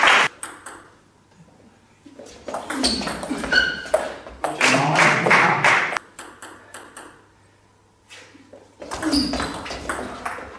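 Table tennis ball clicking sharply off the bats and the table in short exchanges, with loud voices or shouts in between.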